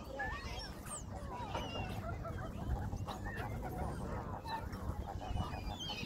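Waterbirds calling close by: many short honking and squawking calls overlapping, with some higher chirps among them.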